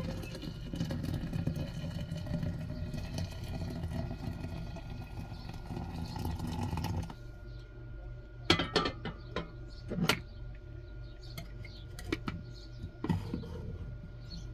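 Hot water pouring from a kettle into a glass French press, the filling tone rising steadily in pitch as the press fills, stopping abruptly about halfway through. Then a few sharp clinks and knocks as the kettle is set down and the lid and plunger are fitted onto the glass press.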